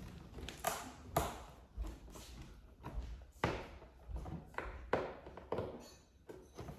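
Hands working at a taped cardboard box, trying to pick and pull off packing tape: a series of irregular short scrapes and taps.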